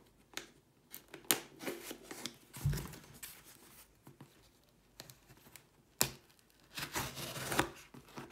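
Packing tape being slit with a small blade and peeled off a cardboard parcel: irregular scratching, ripping and crinkling with a few sharp clicks, and a quiet pause about halfway through.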